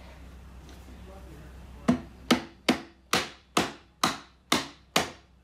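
Mallet tapping the maple arm of a Windsor rocker down onto its spindles and sockets during a dry fit: about eight sharp wooden knocks, evenly spaced a little under half a second apart, starting about two seconds in.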